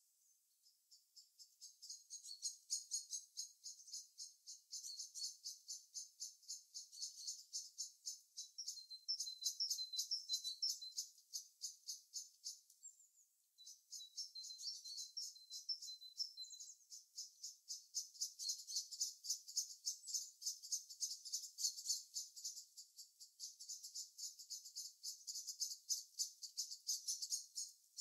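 High-pitched chirping, an even run of about three or four short chirps a second, starting about a second in. The chirping pauses briefly about halfway, then picks up again.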